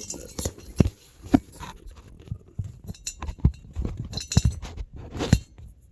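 Irregular clicks, knocks and light clinks of small hard objects being handled and set down, with a few sharper knocks among them.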